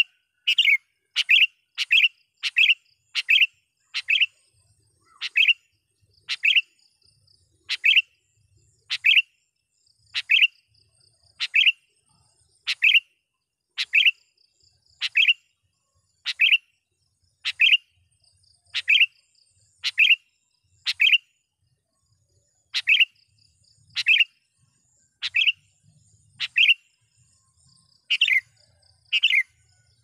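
Sooty-headed bulbul calling: short, sharp notes repeated about once a second, with a brief pause about three-quarters of the way through. It is a tethered male calling to challenge rival bulbuls.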